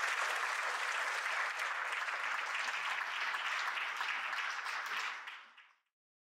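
Audience applauding steadily after a recitation, fading out near the end.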